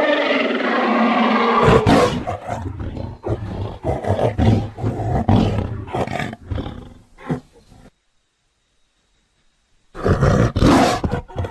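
Tiger roar sound effect: a long roar, then a run of short, rough roaring pulses that die away about eight seconds in. After two seconds of silence a second short roar comes near the end.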